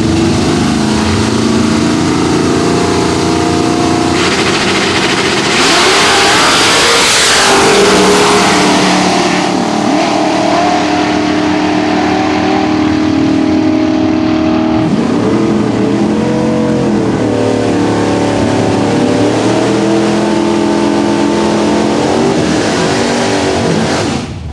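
Two drag-racing cars' engines rumble at the starting line, then launch at full throttle about four seconds in with a loud blast. The engines keep running hard as the cars pull away down the strip, with the pitch rising and falling through gear changes. The sound cuts off just before the end.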